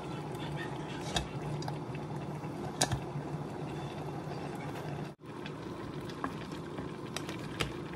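Crab in coconut milk simmering in a pan, a steady bubbling with scattered light clicks and pops. The sound drops out for an instant about five seconds in.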